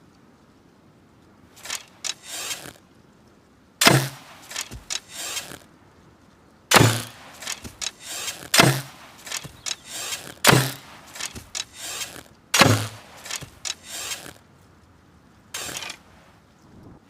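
Hunting bow being shot five times, about two seconds apart: each release is a sharp snap of the string with a brief low thrum. Smaller clicks and rattles of handling come between the shots.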